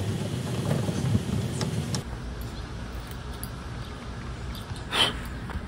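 Handling noise as a bar clamp under a table is adjusted, then a quieter stretch of fiddling with a cordless drill's chuck and small metal bit parts, with one sharp metallic click about five seconds in.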